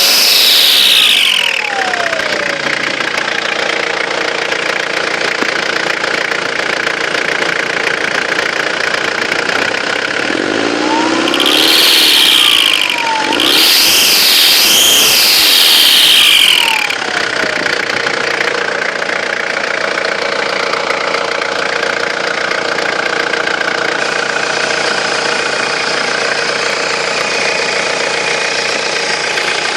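Turbocharged car engine idling, with a turbo whistle that climbs high and falls back as the throttle is blipped three times in quick succession in the middle. It fades back to a steady idle. The whine is excessive, the sign of a faulty turbo.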